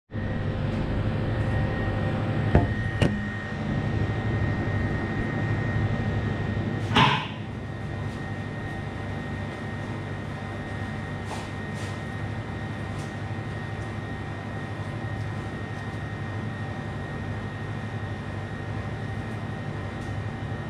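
Steady machine hum of a commercial kitchen's air conditioning and equipment, with a faint high whine. In the first seven seconds the camera is handled, with a couple of clicks and a brief scrape about seven seconds in, after which the hum is a little quieter.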